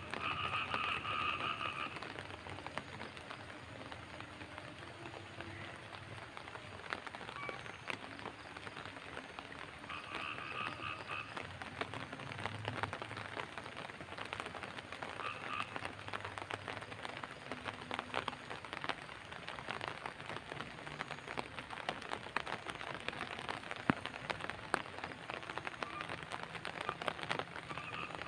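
Steady night rain falling, with dense close drop ticks. Frogs call in short bouts over it: at the start, about ten seconds in, briefly a few seconds later, and again at the end.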